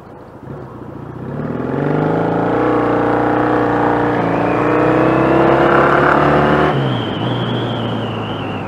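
Motorcycle engine through loud aftermarket exhaust pipes with the baffles fitted, accelerating with its pitch climbing and a brief dip at a gear change about four seconds in. Just before seven seconds the throttle is shut off suddenly and it drops back to a lower, steady running note.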